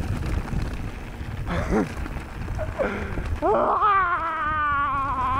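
Wind rush and low trail rumble from a mountain bike descending fast on a dirt trail. From about three and a half seconds in, a sustained wavering pitched whine joins it, preceded by a couple of brief squeaky glides.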